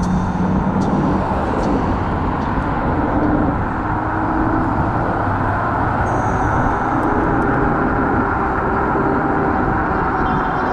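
Steady wind and road rumble on the camera of an electric scooter riding through city traffic, with faint engine tones from nearby vehicles.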